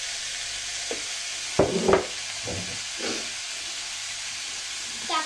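Halved tomatoes sizzling in a hot pot, a steady hiss throughout. A few brief, louder noises come about a second and a half to three seconds in.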